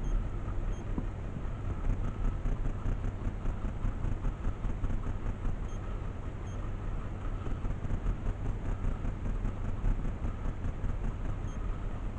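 Wind buffeting the microphone: a steady low rumble that wavers in loudness.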